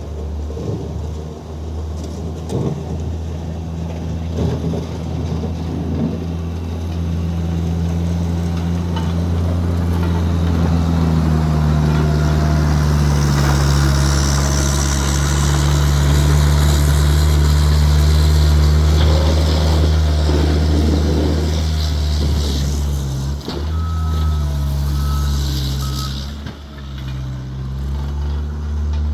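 Skid steer engine running hard under load, building to its loudest through the middle and easing off twice near the end, while the blade scrapes snow across the pavement. Near the end a reverse alarm beeps.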